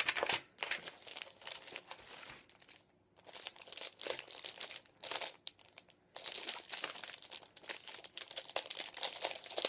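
Plastic sleeves and a paper mailing envelope crinkling and rustling as comic books are unpacked and handled, in irregular bursts with brief pauses about three and six seconds in.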